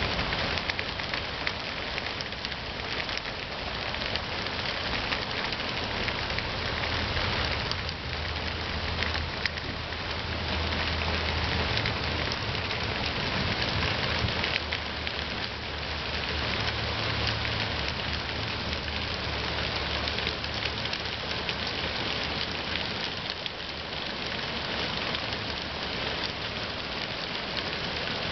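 Heavy thunderstorm rain pouring steadily through trees and onto the ground, a dense, even hiss.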